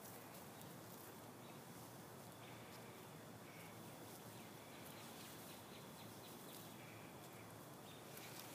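Faint outdoor ambience: a steady high-pitched trill that stops and starts, with a few short chirps.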